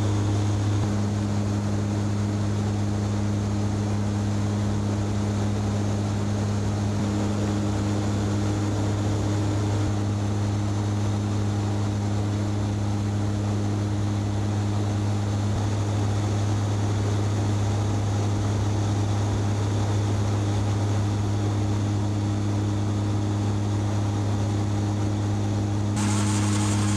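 Steady in-flight drone of an airliner's engines heard inside the cockpit: an unbroken low hum with a deep steady tone. Near the end a hiss joins in and the noise grows a little louder.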